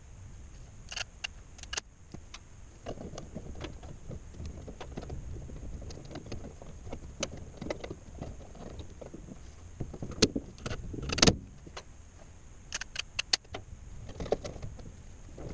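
Hands working with tools and parts: scattered clicks and taps over rustling handling noise, with a louder clatter about eleven seconds in and a quick run of clicks soon after.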